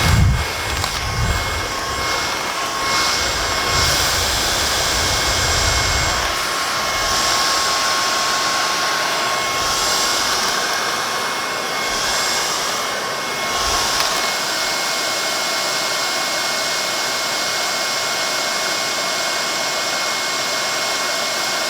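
Tineco Pure One X cordless vacuum cleaner running on max power, a steady high motor whine over rushing air. A few low bumps come in the first six seconds and once near the middle.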